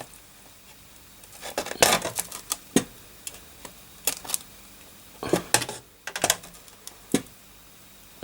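Light metallic clicks and clatters from small tools and components being handled while capacitors are desoldered from a motherboard over a solder pot. They come in scattered groups of a few sharp ticks.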